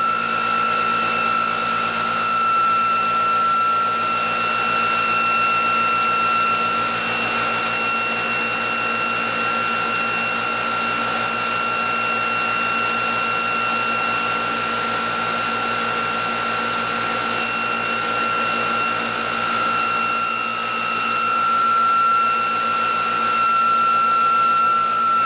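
Electric drive motor and generator rotor of a bench test rig spinning steadily: a constant high-pitched motor whine with higher overtones over a hum, wavering slightly about three-quarters of the way through.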